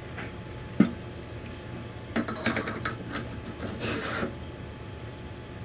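Metal tube clicks and scrapes as a DSLR's T-adapter tube is slid down over a telescope's eyepiece extension tube and seated: a sharp knock about a second in, then a cluster of small clicks and rattles and a brief scrape near the middle.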